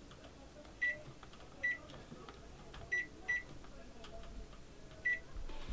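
Microwave oven keypad beeping as its buttons are pressed to set the kitchen timer: five short high beeps, unevenly spaced, two of them close together about three seconds in.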